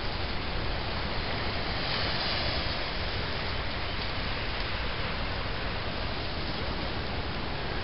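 Steady rushing hiss of ocean surf washing over a rocky shoreline and tide pools, swelling a little about two seconds in.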